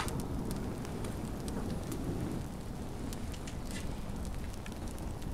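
Paper burning in the hand with a light, irregular crackle over a steady low rumble.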